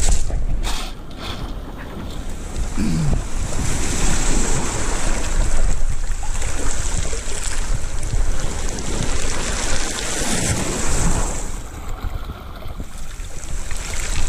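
Small waves washing in and out over shingle and rocks at the water's edge, swelling and easing, with wind buffeting the microphone.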